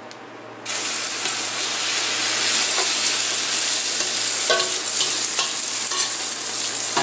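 Beaten egg with potato and onion poured into hot olive oil in an iron frying pan, bursting into a loud, steady sizzle about half a second in as it starts to fry over a high flame. A few short clicks of a utensil come partway through.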